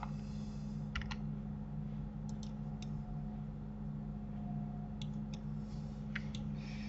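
Computer mouse and keyboard clicks, about ten short clicks in small groups of two or three, over a steady low hum.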